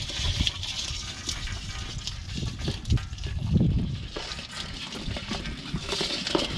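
Wet splashing and dripping with scattered light clicks and knocks as a live fish is handled over a plastic basin of crabs and snails in a wooden boat.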